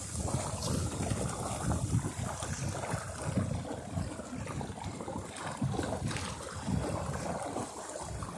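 Wind gusting on the microphone over water washing and splashing along the hull of a small sailboat under way.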